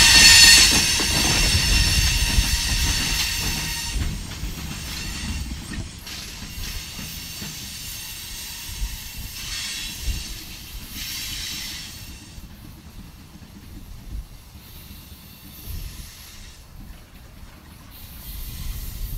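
Empty covered hopper cars of a frac sand train rolling past, wheels squealing on the rails at first; the squeal dies away after about four seconds and the rolling noise fades steadily as the end of the train moves off into the distance.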